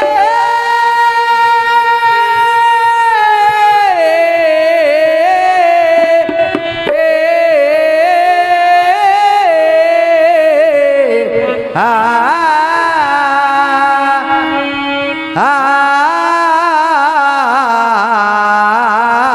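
Indian-style sung melody with accompaniment: long held notes that waver and bend in ornamented turns, with a new phrase starting twice near the end.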